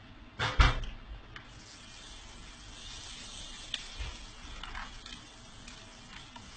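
Stiff paper pages of a handmade book being turned by hand: a loud rustle and thump about half a second in, then softer rustling of paper with a light knock about four seconds in.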